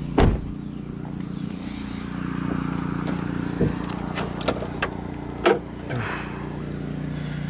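A pickup truck's hood being unlatched at the grille and lifted: a few sharp metal clicks and clunks, the loudest about five and a half seconds in, over a steady low hum.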